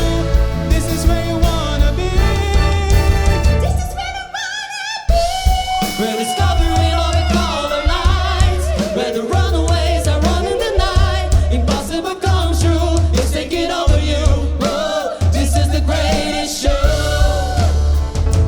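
A pop-style show song sung by a solo voice over orchestra and band accompaniment with a heavy, pulsing bass beat. About four seconds in the bass drops out briefly while the voice holds a note with vibrato, then the beat comes back in.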